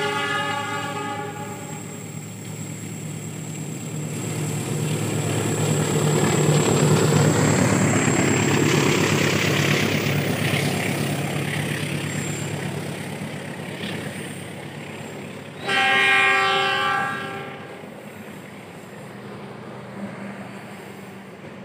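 The Malabar passenger train, hauled by a diesel locomotive, passing close by. A horn chord ends about a second and a half in. The engine rumble and wheel noise then build to a peak as the locomotive passes, and the carriages roll by. A second horn blast comes about sixteen seconds in, and the rolling noise fades away.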